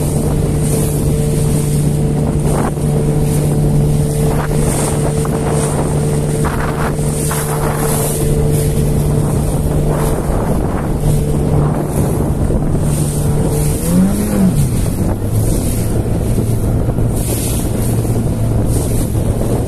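Outboard motor driving an inflatable boat at a steady speed over choppy water. About two-thirds of the way through, its pitch briefly rises and falls, then settles on a lower steady note as the throttle changes. Wind buffets the microphone, with water splashing against the hull.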